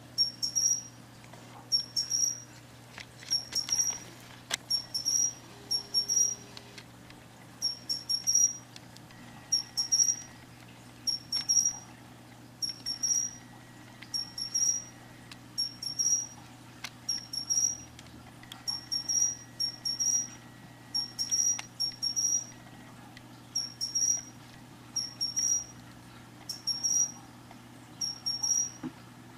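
Japanese pine cricket (matsumushi) calling: short, high, bright chirps repeated about once a second. At times a faint, long, steady trill from a kantan tree cricket runs underneath.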